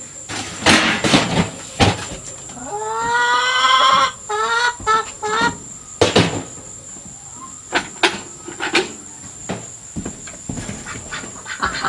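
An animal's drawn-out call, held for over a second about three seconds in, then a few short calls, among scattered knocks and clatter.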